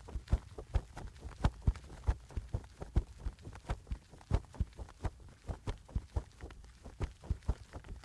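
A quick, uneven series of sharp taps or knocks, several a second.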